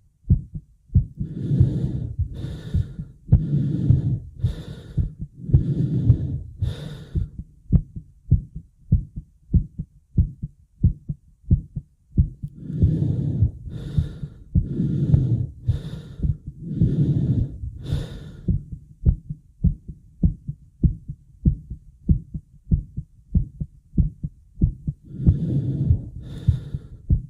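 A person's fast heartbeat, beating steadily throughout, with runs of heavy, quick breaths: about six from a second in, about six more from about 12 seconds, and two or three near the end. The person is out of breath and cannot catch it.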